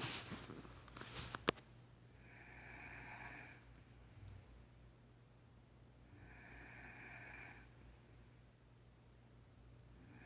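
A sleeping woman snoring, a breathy snore about a second and a half long coming about every four seconds, twice in full and a third starting at the end. Rustling and a sharp click in the first second and a half.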